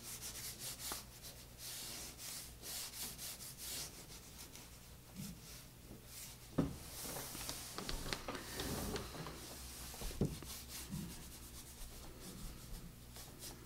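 Watercolour brush rubbing and dabbing across Arches 140 lb watercolour paper in quick short strokes, with a couple of soft knocks partway through.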